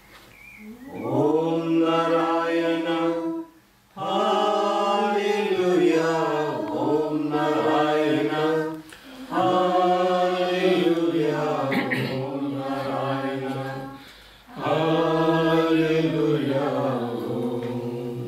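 A congregation of voices singing a devotional bhajan together in long, held phrases, four phrases with short breaths between them.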